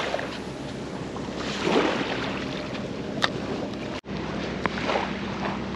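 Outdoor seaside noise of wind on the microphone and waves washing on a rocky shore, with one sharp click about three seconds in. The sound cuts out abruptly for an instant about a second later.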